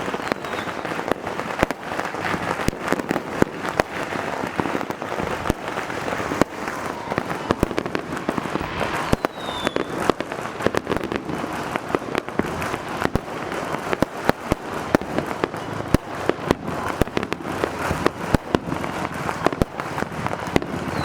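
Fireworks going off in a dense, continuous barrage: many sharp bangs and crackles every second, with an occasional short falling whistle.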